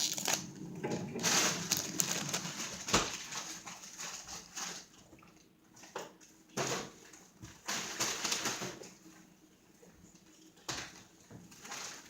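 Crinkling and rustling of a foil booster-pack wrapper and cards being handled, in irregular bursts, busiest in the first few seconds and coming back twice later.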